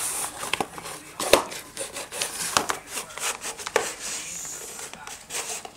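A cardboard egg carton being nosed and pawed by a Welsh springer spaniel on a hard floor: scraping and crackling cardboard with many sharp knocks as it is shoved about.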